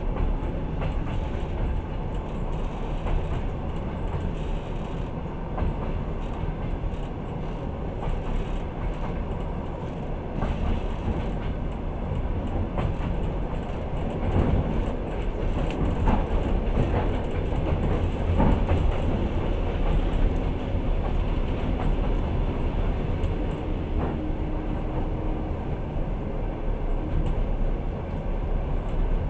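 Passenger train running along the line, heard from inside the carriage: a steady rumble of wheels on rails with scattered clicks, more of them around the middle.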